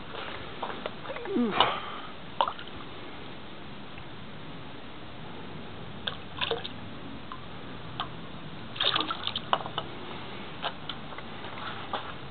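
Water running and trickling into a shrine's stone purification basin (temizuya), a steady wash of sound with scattered short clicks and taps, a small group of them about three-quarters of the way through.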